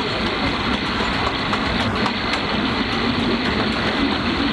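Steady rumbling ride noise of a vehicle in motion, with light, irregular clicks throughout.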